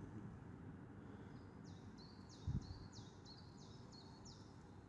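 A bird singing faintly: a quick series of about seven high notes, each sliding downward, over a low background rumble, with one brief low thump midway.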